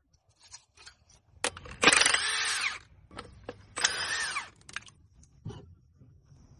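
Workshop tool sounds: scattered clicks and clanks of metal tools, with two short bursts of a power tool, each about a second long, about two and four seconds in.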